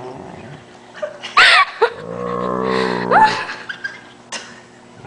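Harlequin Great Dane making a low, drawn-out moaning groan, the sound likened to a water buffalo, starting about two seconds in and lasting over a second before ending in a quick rising squeal. A person laughs with it.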